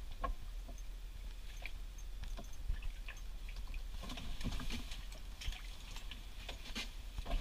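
Scattered small clicks, taps and rustles of ice-fishing rods, reels and tackle being handled, with a busier stretch about four seconds in, over a steady low hum.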